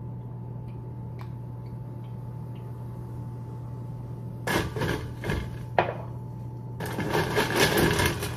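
A bottle of sparkling wine being handled over a steady low hum. After about four and a half seconds there is a rough burst and a sharp click, then clattering and rustling from about seven seconds in as the bottle is pushed down into a metal wine bucket.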